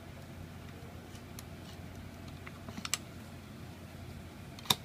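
Metal clicks from a heavy-duty stapler's staple cover being slid back into its magazine and locked: a few faint clicks, a quick cluster of clicks midway, then one sharp click near the end as the cover snaps into place.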